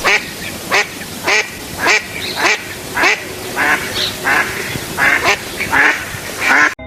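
A bird giving a long run of nasal, quack-like calls, about two a second, a dozen in all, ending abruptly near the end.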